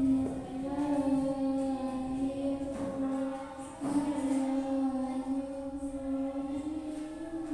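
A girl reciting the Qur'an in the melodic qiro'at style into a microphone, drawing out long held notes. There is a short break about four seconds in, then the note resumes slightly higher.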